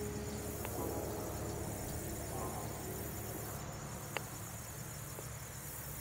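Steady, high-pitched insect chirring, typical of crickets in a marsh, over a low background rumble, with a couple of faint clicks.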